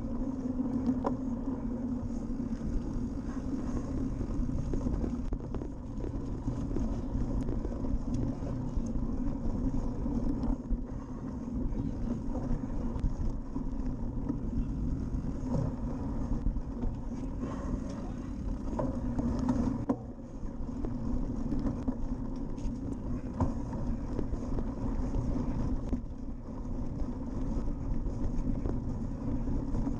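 Cyclocross bike ridden over a bumpy grass and dirt course, heard through an action camera mounted on it: a steady rumble of tyres and wind, with many small rattles and knocks from the bike going over rough ground.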